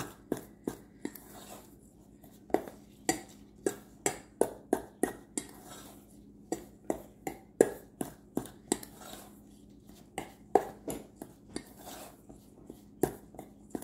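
A utensil knocking and clinking against a metal mixing bowl while stirring a crumbly flour, sugar and cinnamon cobbler topping: irregular sharp clicks, a couple a second, over a faint steady hum.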